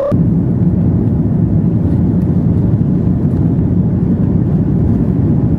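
Steady low rumble of a jet airliner's cabin noise in flight, engine and airflow noise heard from inside the cabin by the window.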